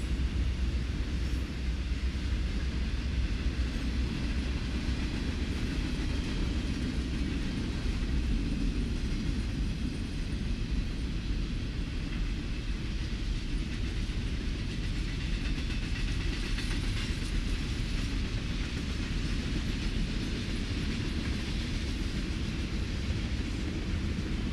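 Freight train of autorack and double-stack container cars rolling past at steady speed: a continuous low rumble of steel wheels on the rails.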